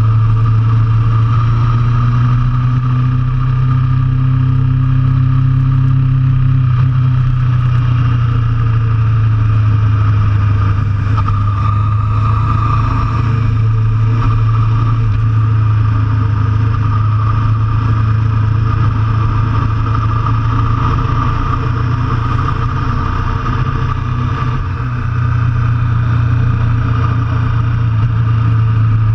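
A motor vehicle engine running steadily under way, a constant low drone that holds an even pitch throughout, with a slight dip in level about 25 seconds in.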